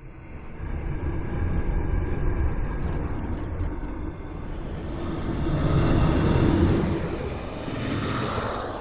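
Designed sci-fi 'time glitch' fly-by: a noisy, low-heavy whoosh that swells in and passes like a vehicle. It has a flickering, stuttering glitch in the highs during the first few seconds and grows brighter as it goes. It is loudest about six and a half seconds in and fades near the end.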